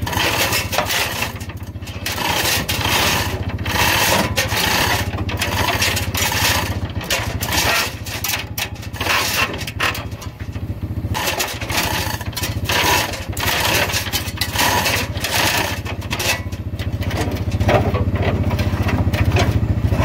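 Four-wheeler's small engine running steadily, its level rising and falling as it pushes the truck back, with metal scraping and clunks from the engine being worked out of the bay.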